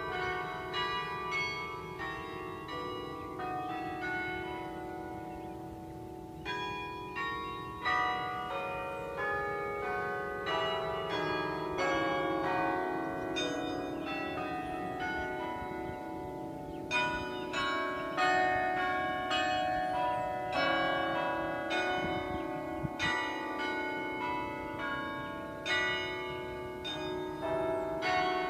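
A carillon being played: its bells are struck in a melody with chords, and each note rings on under the next. The strikes thin out briefly about five seconds in, then pick up again.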